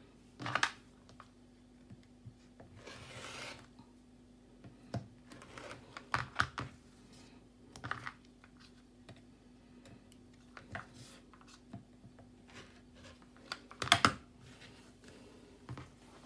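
Tools and a ruler being handled while fabric is measured and cut on a cutting mat: scattered clicks and taps, a louder knock just after the start and another near the end, and a soft rasp about three seconds in, over a faint steady hum.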